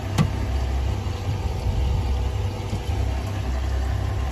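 Honda 250 outboard motor idling with a steady low rumble, with one short sharp knock about a quarter of a second in.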